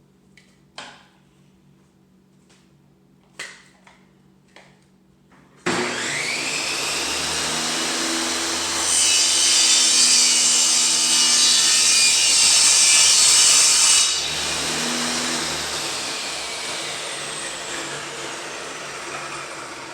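Table saw switched on about six seconds in, its motor spinning up with a rising whine. The blade then cuts through a piece of wood, louder for about five seconds. After that the saw is switched off and winds down, its pitch slowly falling. A few light knocks come before it starts.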